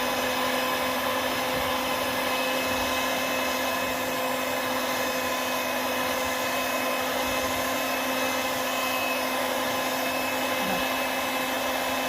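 Electric cake mixer running steadily at low speed, its motor giving an even whine as the beaters mix flour, milk and vanilla into sponge-cake batter.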